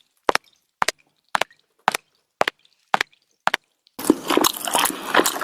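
Sharp, evenly spaced clicks or knocks, about two a second, then a dense crackling noise that starts near the end.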